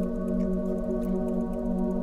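Ambient background music of sustained, held tones, the chord shifting at the start.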